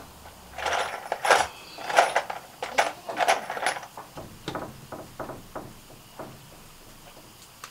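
A string of metallic clanks and rattles, several knocks a second for about five seconds, then dying away.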